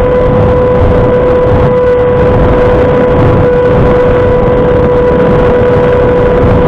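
Electric ducted fan of an RC model plane running at steady throttle in flight, a constant high whine, heard from a camera on board the plane with wind rushing and buffeting over the microphone.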